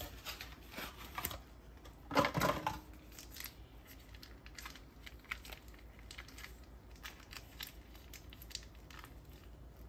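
Foil wrapper of a block of cream cheese crinkling and tearing as it is handled and picked at, in scattered small rustles and clicks, with a louder crackle a little over two seconds in.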